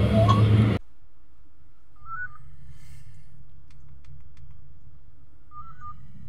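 A brief voice cuts off under a second in. Then a phone on speaker rings out while calling: a short melodic ringback chirp about two seconds in and again near the end, with a few light taps between, over a steady low hum.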